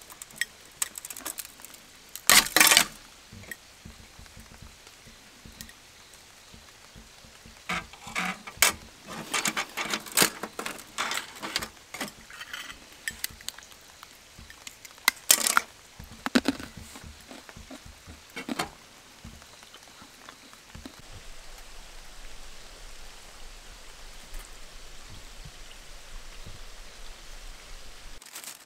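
Scattered clinks, taps and scrapes of small metal dalgona-kit utensils, with a cluster of quick clatters in the middle, over a steady hiss of rain.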